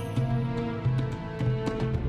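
Background music: a steady instrumental track with a bass line and light, evenly spaced percussion.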